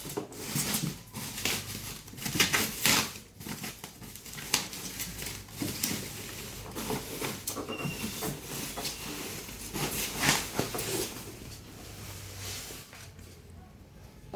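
Irregular rustling, scraping and knocking as packaging and parts are handled during the unboxing of a monitor. The bursts are loudest near the start and about two-thirds of the way through, then die down near the end.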